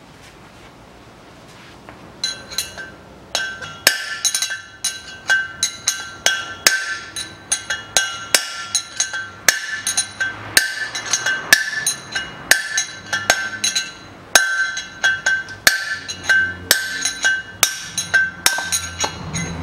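Hammer blows on a drift knocking an old tapered-bearing race out of a Land Rover Defender's steel rear hub, a steady series of about one and a half strikes a second starting about two seconds in. Each blow is sharp and leaves the hub and brake disc ringing.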